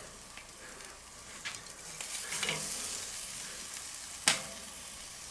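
Duck breast sizzling on the grate of a charcoal kettle grill, getting a little louder about two seconds in. One sharp click about four seconds in.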